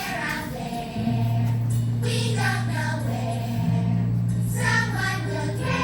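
Musical-theatre song with a backing track: a group of voices singing over long held bass notes.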